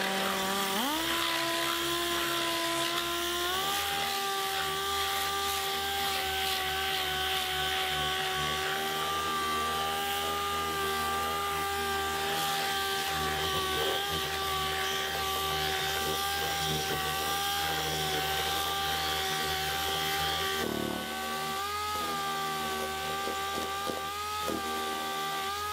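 Air-powered sander with an 80-grit disc scuffing a black plastic car part to prepare it for body filler. It makes a steady high whine that spins up in pitch over the first second or so, then runs evenly, wavering slightly near the end as the pressure on the part changes.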